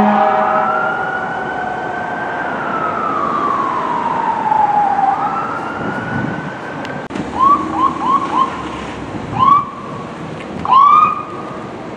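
Fire truck's mechanical Q siren wailing: its pitch rises, winds slowly down over a few seconds and rises again. From about seven seconds in come short rising siren chirps, four in quick succession and then two more spaced out, the last one loudest.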